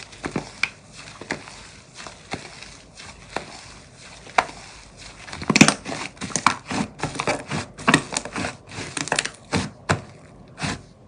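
Thick white slime being stretched, squeezed and pressed by hand, giving off a run of crackles and pops that grow louder and more frequent about halfway through.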